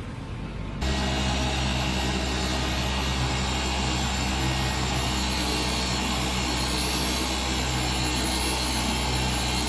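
Electric car polisher running steadily as its pad buffs the paint on a car hood: a steady motor hum with a thin high whine above it. It starts abruptly about a second in.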